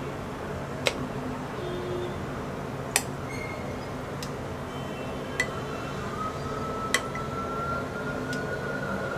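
A metal spoon clinking against a glass bowl of gram-flour batter four times, a couple of seconds apart, over the steady sizzle of a chilli fritter deep-frying in hot oil. A faint high tone rises slightly and holds through the last few seconds.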